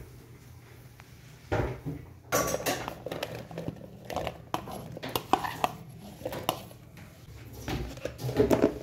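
Clatter of kitchen handling at a plastic blender jar: peeled garlic cloves tumbling in from a bowl, with knocks of a spoon and the jar's lid. The knocks and rattles start about a second and a half in and go on irregularly.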